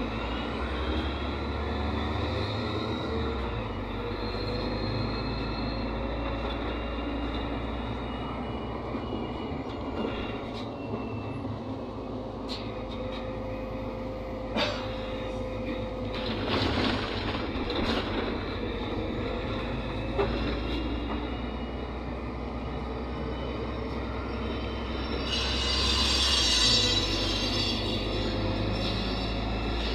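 Cabin noise of a NefAZ 5299 city bus on the move: the diesel engine drones low, and whining tones glide up and down as the bus changes speed. There are a few knocks and rattles from bumps midway, and a burst of hiss near the end.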